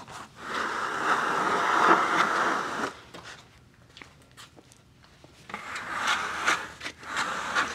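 A flat hand tool scraping sawdust off the sawn face of a freshly milled monkey puzzle slab. One long scrape of about two and a half seconds, a pause, then several shorter strokes near the end.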